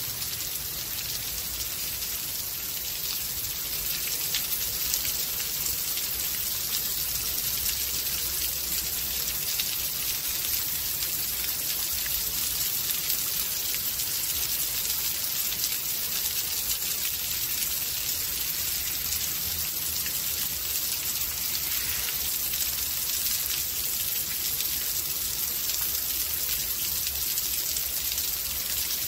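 Steady rain from a rainstorm, a dense, even hiss of many drops hitting surfaces.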